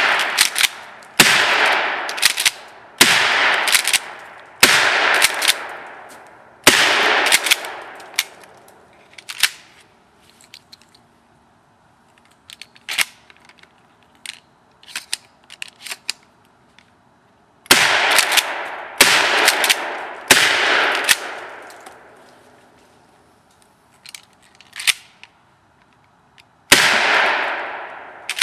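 Mossberg 500 pump-action shotgun firing birdshot, about eight sharp blasts, each trailing off over a second or so: four in quick succession, then a pause with lighter clicks and clacks, then three more and a last one near the end.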